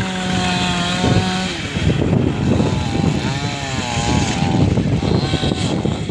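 Strong storm wind rushing and buffeting the microphone. A steady engine-like hum runs under it for the first second and a half, and a wavering pitched call rises and falls about three to four and a half seconds in.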